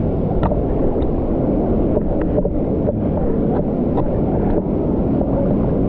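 Loud, steady rushing of a waterfall and river water, with a few faint ticks over it.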